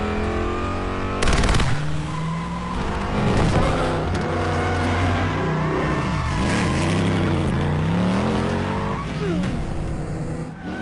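Heavy truck and car engines running hard in a film chase sound mix, with tyres skidding. There is a loud bang about a second in, and the engine pitch rises several times later on.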